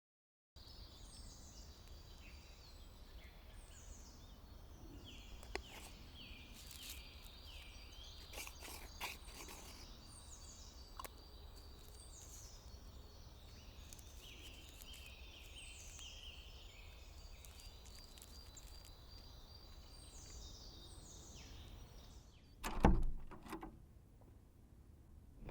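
Repeated short falling bird chirps over faint steady outdoor ambience with a thin high steady tone, and a few light clicks. A single loud low thump about 23 seconds in, after which the ambience drops away.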